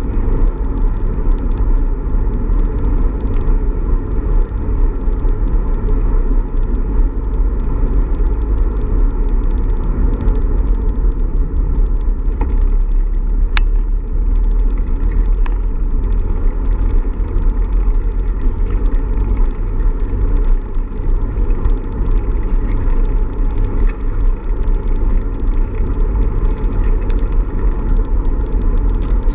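Steady low rumble of wind buffeting and road noise picked up by a camera on a moving bicycle, with one sharp click about halfway through.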